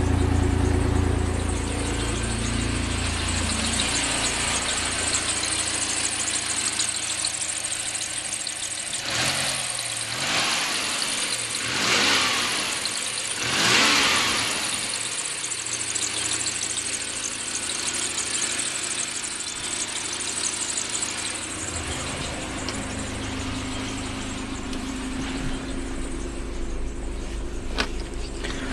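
Mitsubishi 6G72 3.0-litre V6 petrol engine idling shortly after a cold start. Three short swells in the sound come between about nine and fifteen seconds in.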